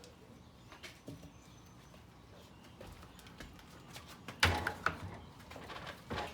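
Wooden boards being handled in a workshop, with scattered light clacks and a louder cluster of sharp wooden knocks about four and a half seconds in and another near the end.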